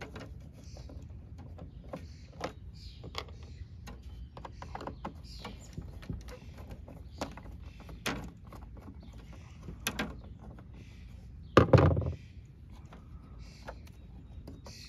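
A Phillips screwdriver turning out the small screws of a license plate light lens: a string of light clicks and scrapes of metal on the screw heads and trim, with one louder thump late on.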